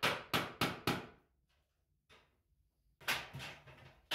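Hammer blows on a nail fixing a laminate board to a wooden wall: four quick strikes in the first second, then a pause and a few more knocks about three seconds in.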